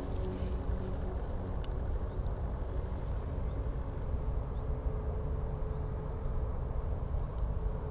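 Steady low rumble of outdoor background noise, with a faint steady hum joining about halfway through.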